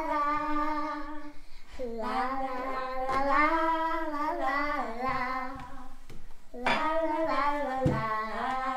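A single voice singing a wordless 'la la la' melody without accompaniment. The pitch moves up and down, with a short break near the end.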